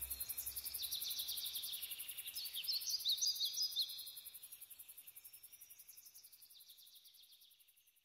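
Small birds chirping and trilling in quick high notes, loudest about one to four seconds in, over a thin, high, pulsing insect buzz. Both fade away toward the end.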